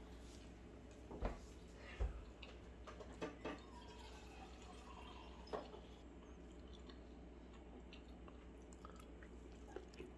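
Quiet eating sounds: a handful of soft clicks and taps as metal chopsticks pick up slices of raw flounder and dip them in sauce, over a low steady hum.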